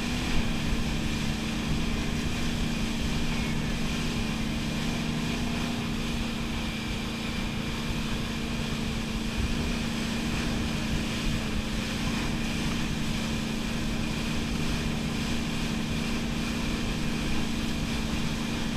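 Wakeboard boat's engine running at a steady speed: a constant drone over the rush of the churning wake.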